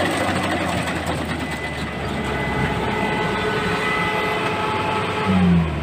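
Kubota combine harvester's diesel engine running steadily, with a thin multi-tone whine over it from about two seconds in until near the end. A louder, low-pitched pulsing sound comes near the end.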